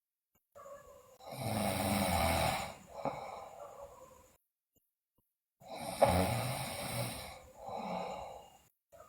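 A sleeping girl snoring: two long snores about five seconds apart, each loudest early on and then easing into a softer tail, with silence between them.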